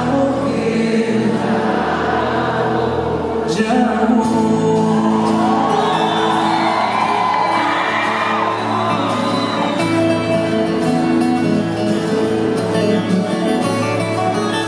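Live concert music: a song performed with singing over instrumental accompaniment, with the audience's voices and cheers mixed in, mostly in the first half.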